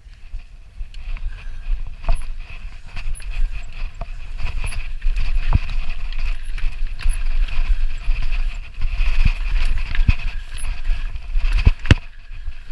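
Mountain bike rattling down a rough rocky trail: tyres crunching over loose stone, with the chain and frame clattering in many sharp knocks over a steady low rumble. The loudest knocks come just before the end.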